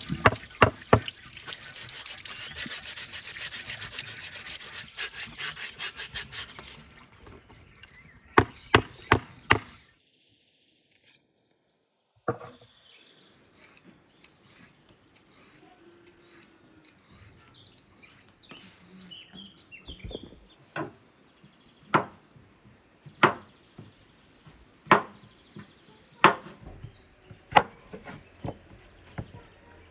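Tap water running and splashing over fresh herbs in a wicker basket as hands rinse them. After a short silence, a vegetable peeler scrapes the skin off a cucumber. Then a knife cuts through cucumbers onto a wooden cutting board, tapping the board at a steady pace about once every second and a half.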